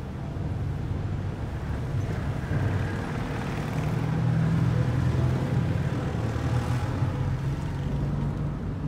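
Several military motorcycles, some with sidecars, running as they ride past in a column, a steady low engine rumble that swells about four to five seconds in as one passes close.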